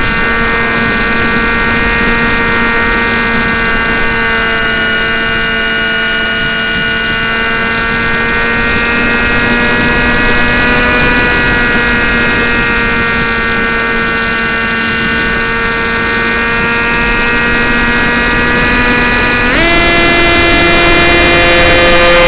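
A model plane's motor and propeller whining steadily, heard close up from the onboard camera over wind rush, its pitch wavering slightly; near the end the whine jumps sharply higher.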